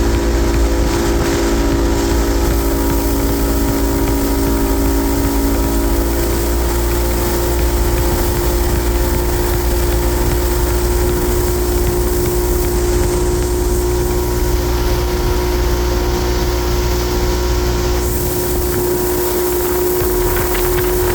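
A motor or engine running steadily, with a constant hum and a low rumble.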